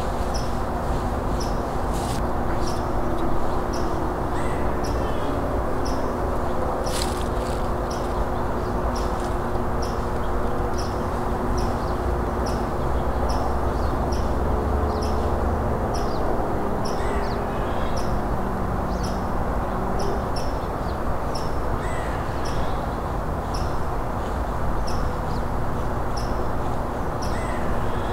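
Woodland ambience with birds calling: a high, short note repeats evenly a little more than once a second, and a few fainter calls come over a steady rush of background noise, with a couple of brief clicks.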